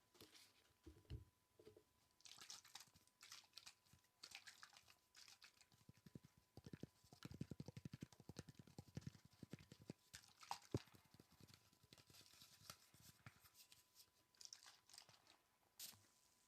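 Soft ASMR tapping close to the microphone: scattered light clicks and taps, with a run of rapid taps from about seven to ten seconds in and one sharper click just after.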